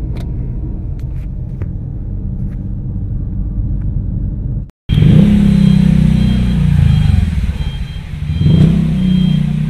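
Car engine and road noise rumbling inside the cabin while driving. About halfway through, the sound cuts out for a moment and comes back louder, the engine note rising and falling, with a short high beep repeating steadily.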